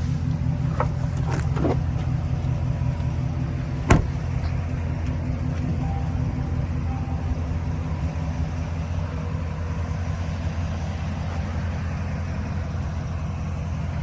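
GMC Sierra AT4X's 6.2-litre V8 idling steadily, with one sharp click about four seconds in.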